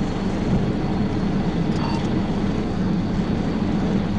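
Police cruiser at high speed, around 117 mph: a steady roar of engine, wind and tyre noise heard from inside the car.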